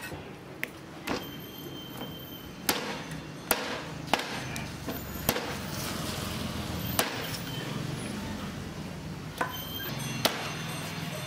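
Heavy steel cleaver chopping raw duck pieces on a thick round wooden chopping block: about nine sharp separate chops at an uneven pace, roughly a second or more apart, over a low steady hum.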